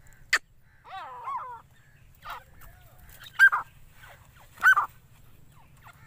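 Young grey francolins, about four months old, giving short, harsh calls several times: a wavering call about a second in, then two louder calls past the middle.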